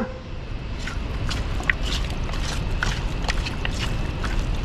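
A hand rubbing turmeric powder into wet raw chicken pieces in a steel bowl: scattered soft squelches and small clicks against the bowl, over a steady low rumble.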